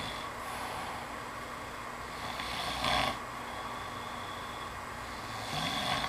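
A man snoring in his sleep, one snore about every three seconds, the loudest near the middle.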